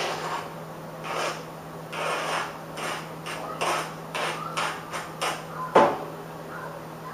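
Chopped vegetables scraped off a plate into a pot of butter and stirred with a utensil: a run of short scraping strokes, with one sharp knock about six seconds in. A low steady hum runs underneath.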